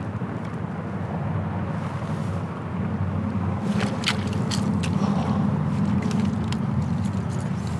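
Steady low wind rumble on the microphone, with a quick run of light clicks and taps in the middle.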